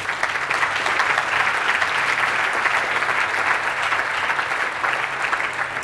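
Audience applauding steadily: a roomful of people clapping after a talk ends.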